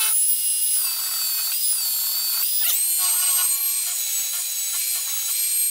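Handheld belt sander running with a steady high whine as it sands a bevel into a walnut butter-knife blade. Its pitch dips briefly about two and a half seconds in.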